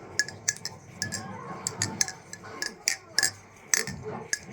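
Balisong butterfly knife being handled, its handles and blade clicking and clinking in about a dozen sharp, irregular clicks.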